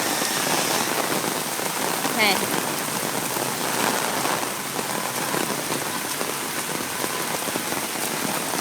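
Heavy rain pouring down, a steady dense hiss of drops hitting the ground and puddles.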